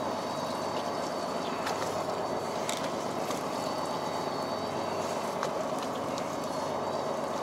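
Fishing boat's engine running steadily: an even hum with a faint high whine above it, and a few light clicks.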